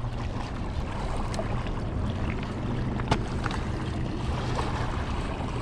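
Steady outdoor rush of wind and moving river water with a low, steady hum underneath and a few faint clicks.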